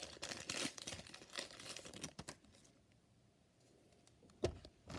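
Foil trading-card booster pack wrapper crinkling and tearing as it is opened, for about two seconds, then quiet apart from a couple of soft knocks near the end.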